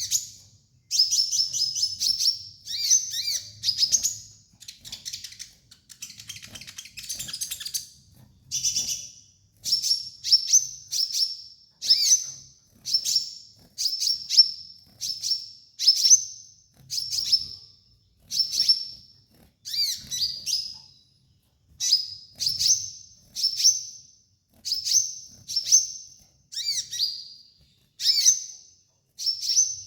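Van Hasselt's sunbird (kolibri ninja) singing: short, high-pitched chirping phrases repeated about once a second, with a denser run of rapid twittering around six to eight seconds in.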